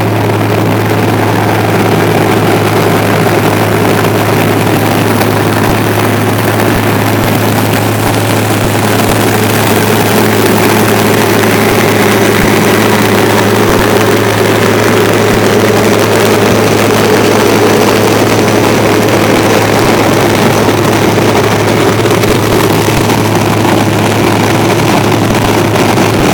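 Heavy diesel road-construction machinery running steadily, a loud constant low engine drone with no change in pitch.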